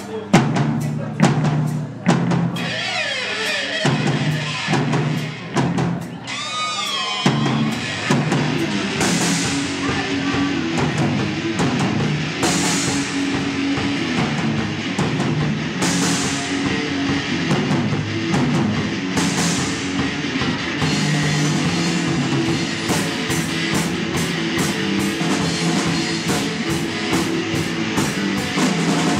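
Live rock band playing, recorded through the room: drum kit with bass drum, snare and crash cymbals under distorted electric guitar and bass. A held, wavering guitar note comes about six seconds in, then a steady fast riff starts, with a cymbal crash every few seconds.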